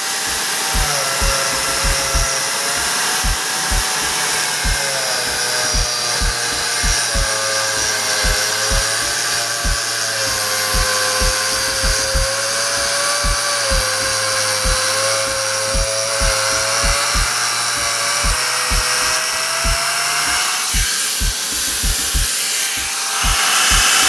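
Mongoose X electric concrete saw running and cutting into a concrete floor: a loud grinding whine whose pitch wavers and sags as the blade is pressed into the cut, then drops away about three seconds before the end. A steady music beat thumps underneath.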